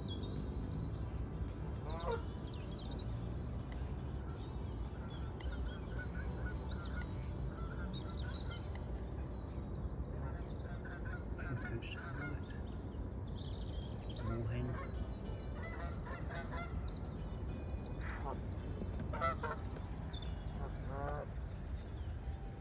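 Canada geese honking, a scatter of separate calls with a cluster of them in the second half. Small songbirds trill faintly in the background over a steady low rumble.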